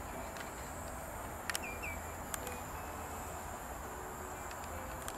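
Wetland field ambience: a steady high insect drone over a low rumble, with a few faint clicks and two short high chirps about one and a half seconds in.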